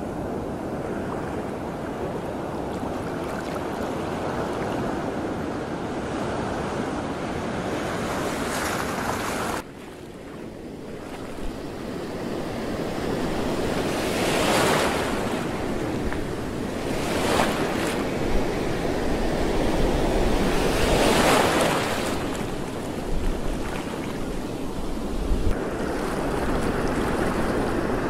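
Sea waves washing, with wind buffeting the microphone. The sound drops suddenly about ten seconds in, then swells of wash come every few seconds.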